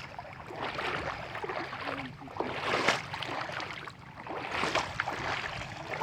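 Water splashing and sloshing, coming in irregular swells.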